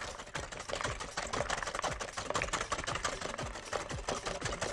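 Wire whisk beating eggs and sugar in a glass bowl: a rapid, irregular run of clicks and scrapes, several strokes a second, as the wires strike the glass.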